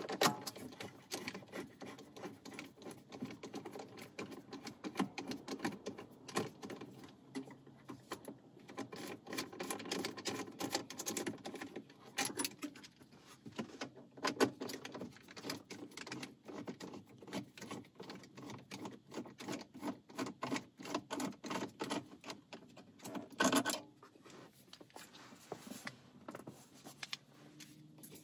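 Hand ratchet clicking in runs of quick ticks as the 10 mm bolts holding the factory radio are loosened, with metal tools tapping and rattling against the dash; a single louder knock comes near the end.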